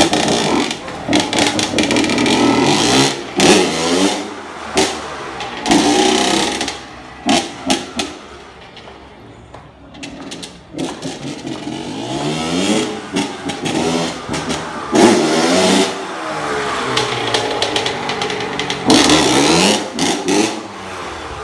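Honda 80 cc two-stroke dirt bike engine revving hard again and again, its pitch sweeping up and down as it is ridden around. It fades for a few seconds about midway, then comes back loud.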